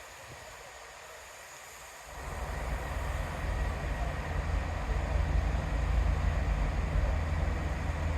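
Diesel passenger train at a platform, its engines rumbling with a low hum as it comes to a stop. The sound is quieter at first, then builds about two seconds in and holds steady.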